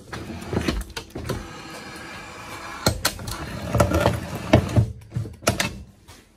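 Broken clay sewer pipe and soil being forced into a hydraulic pipe-bursting machine's extraction cage and handled with gloved hands: irregular knocks, crunches and scraping, with a steady machine whine for about a second and a half near the middle.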